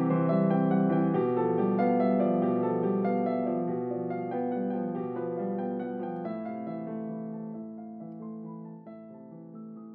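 Piano music of slow, held chords, gradually fading out over the second half.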